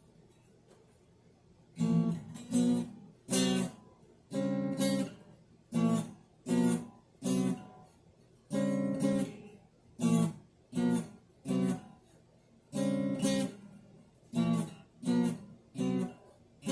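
Acoustic guitar strummed in short, clipped chords with brief gaps between them, starting about two seconds in and going on as a repeating rhythmic figure.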